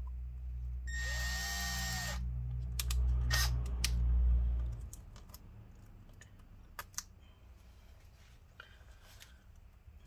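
Small electric drill running, its bit grinding harshly through plastic for about a second near the start; the motor stops abruptly about halfway through, followed by a few light clicks.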